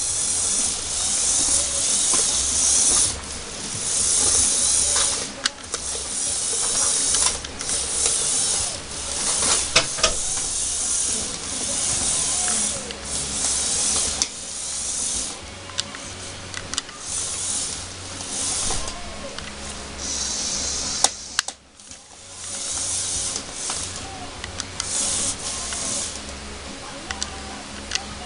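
Home-built LEGO Technic monster truck's Power Functions XL motors whirring through plastic gearing in stop-start bursts of one to a few seconds, with scattered clicks and clacks from the plastic parts.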